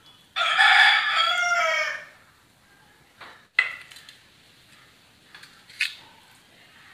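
A rooster crows once, loud and drawn out for about a second and a half, its pitch falling at the end. Later come two sharp clinks of metal on the steel plate.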